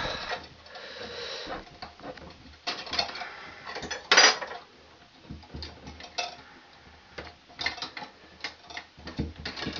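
Irregular small clicks and metallic clatters of 14-gauge Romex wires being pushed into and worked around a metal two-gang switch box, with one louder knock about four seconds in.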